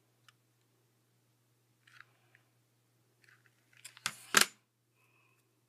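Fingers handling a hot-glued fidget spinner made of skateboard bearings: a few faint clicks and small rustles, then a short loud scrape-and-knock of two quick strokes about four seconds in.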